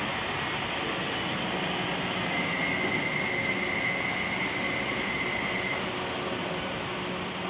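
Model railway train running along the track with a steady rolling rumble. A thin high whine joins about two seconds in and lasts a few seconds.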